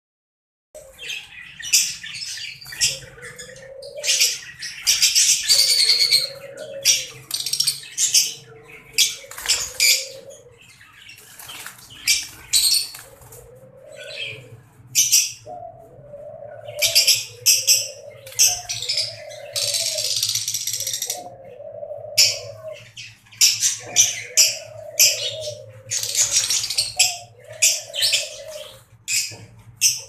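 Caged Fischer's lovebirds chattering: a run of shrill, high chirps and squeaks that come in short bursts, one after another, with brief pauses between runs.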